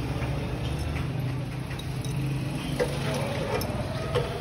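A few sharp metallic clicks and taps of a spanner working the hose fitting on an air-compressor pump head, over a steady low machine hum that fades near the end.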